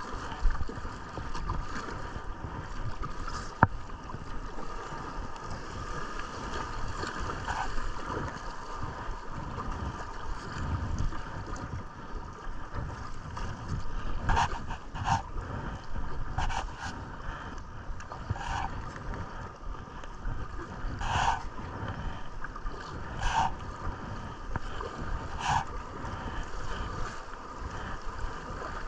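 River water running past a kayak, with low wind rumble on the GoPro microphone. From about halfway on come short splashes every second or two, some in quick pairs, from kayak paddle strokes dipping into the water.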